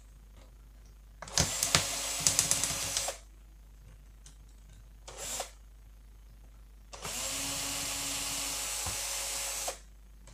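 Cordless drill-screwdriver backing screws out of a laptop's bottom case in short bursts: a run of nearly two seconds with a quick string of clicks in the middle, a brief blip a couple of seconds later, then a steady run of nearly three seconds.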